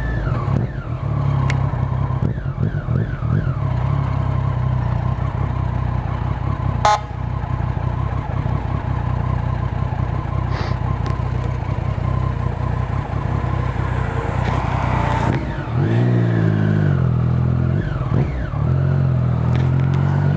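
Motorcycle engine running steadily at low road speed. About three-quarters of the way through, its pitch dips and rises again as it changes speed. A single short sharp click comes about a third of the way in.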